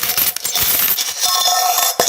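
Metal coins falling in a dense stream, many overlapping clinks and short metallic rings.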